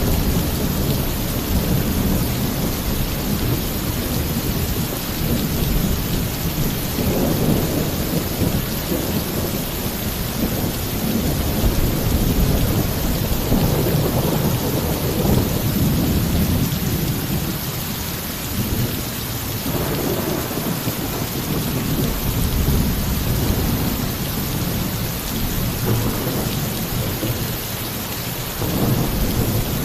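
Heavy, torrential rain pouring steadily on a roof, with low rolling thunder rumbling underneath and swelling and fading several times.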